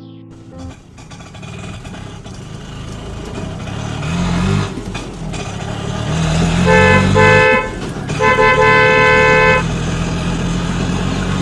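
Toy train's electronic horn tooting two short blasts and then one long one, over a steady low motor hum.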